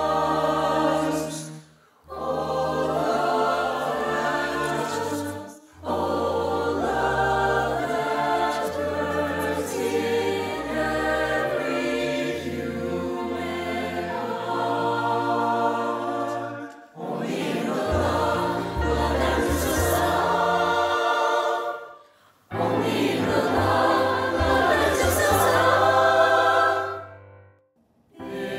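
Mixed-voice high school choir, recorded singer by singer at home and mixed as a virtual choir, singing in long sustained phrases over held low notes. The singing breaks off for short pauses four times.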